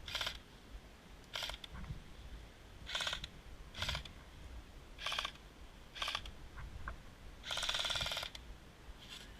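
Airsoft electric rifles firing several short bursts of rapid clicking shots, the longest burst near the end.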